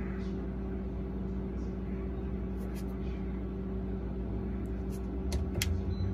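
Whirlpool refrigerator running, its fan giving a steady hum, with a few light clicks as the temperature-setting button on its control panel is pressed.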